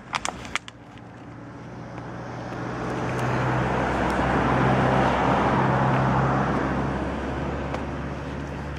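A motor vehicle passing on the road, its engine and tyre noise swelling to a peak about halfway through and then fading away. A few light clicks just at the start.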